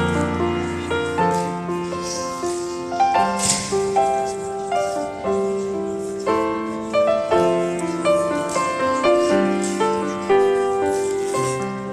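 Piano music: single notes struck one after another over held lower notes, each fading after it is struck.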